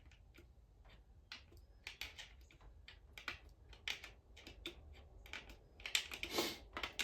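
Irregular metallic clicks and light knocks from connecting rods on a 1984 Chevy engine's crankshaft being rocked side to side by hand, clacking against each other, with a short scrape about six seconds in. The play is excessive: the rods are way too loose, and the bearings may need replacing.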